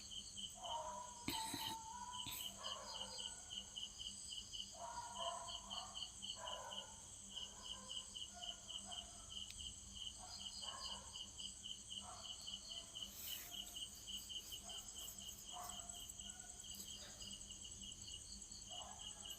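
Insects, cricket-like, chirping in a fast, even pulse with a steady high hum behind it. Faint irregular background sounds come and go.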